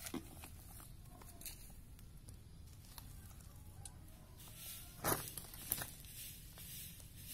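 Goat hide being peeled off a hanging carcass by hand: faint tearing and crackling as the skin parts from the flesh, with two sharper snaps about five seconds in.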